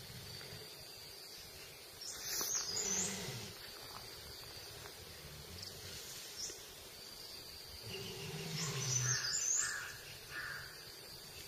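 Outdoor ambience with birds chirping and a thin steady high tone that comes and goes. Two louder, rough, deep sounds rise about two seconds in and again about eight seconds in.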